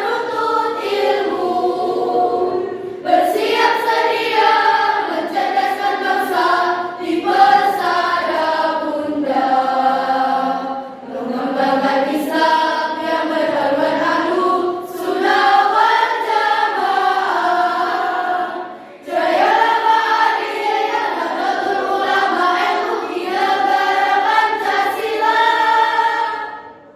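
A school choir of students singing a song together in several voices. The singing dips briefly twice, around eleven and nineteen seconds in, and the song ends just before the close.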